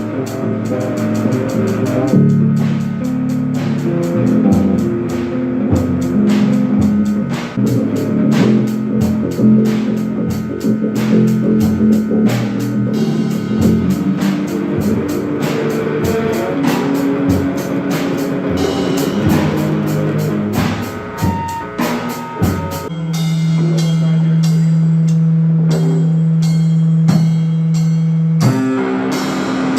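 Rock band of beginner players (electric guitar, bass and drum kit) playing a song, the drums hitting busily over chugging guitar and bass. About three quarters of the way through the drumming thins out under a long held low note, and the band changes chord near the end.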